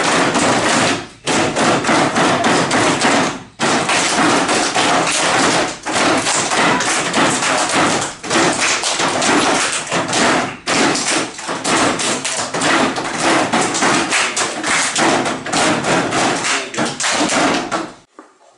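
A class of children drumming their hands on their desks: a loud, dense patter of thumps that stops briefly a few times and cuts off near the end.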